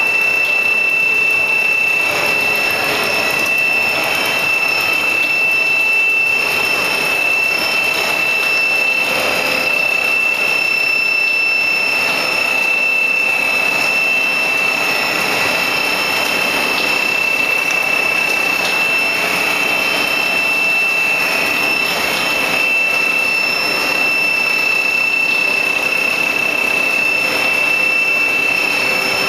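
Plastic sheet-making machine running steadily: an even mechanical noise with a constant high whine over it.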